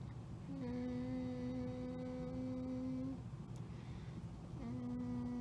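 A woman humming a long, flat "hmmm" while thinking, then a second, shorter hum near the end.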